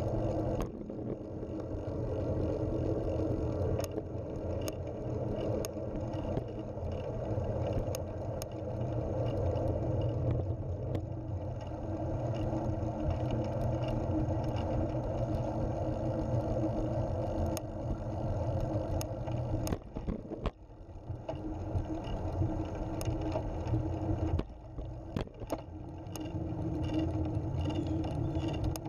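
A recumbent trike rolling along an asphalt trail, heard from its own frame: a steady low rumble of tyre and wind noise with occasional light clicks and rattles. The rumble drops away briefly twice in the last third.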